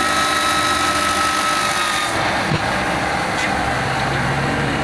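Water-cooled circular saw blade of a CNC stone-cutting machine running in a stone slab, a steady mechanical noise with a thin whine that fades out about two seconds in, when the high hiss also drops away, leaving a low hum.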